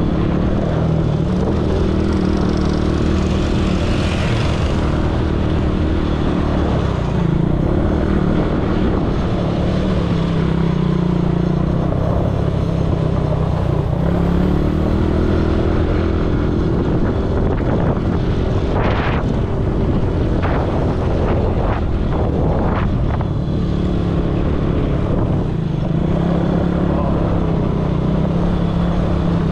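An ATV engine running steadily under way, its pitch rising and falling as the throttle changes, with a few short clattering knocks about two-thirds of the way through.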